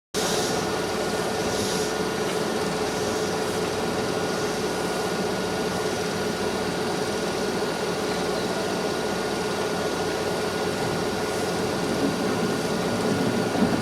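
Steady hum and rushing noise of an electric train carriage, with a constant drone that holds the same pitch throughout.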